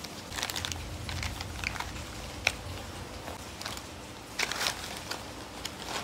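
Plastic-foil sheet-mask sachets crinkling and rustling as they are handled and put into a backpack, in short crackly bursts, with one sharp tap about two and a half seconds in.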